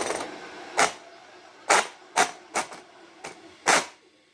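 Sharp, irregular clicks and knocks from a JLB Cheetah remote-control car, about eight of them, after a brief whir at the start. This is the problem sound the owner is showing: he says it gets stuck and that he probably needs to change a part.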